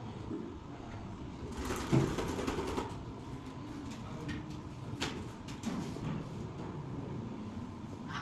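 A small quadruped robot dog's leg servos whirring and its feet clattering on the concrete floor as it steps round to turn in place, busiest about two seconds in, followed by a few single clicks of footfalls.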